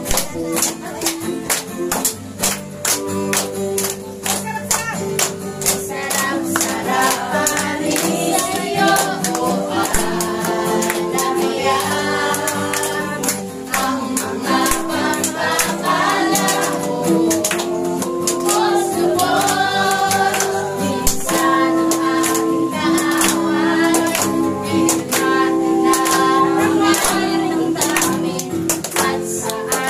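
Praise-and-worship music: a Tagalog song sung by a group of voices over instrumental accompaniment, with a steady beat of sharp percussive strokes and hand clapping. The singing comes in a few seconds in.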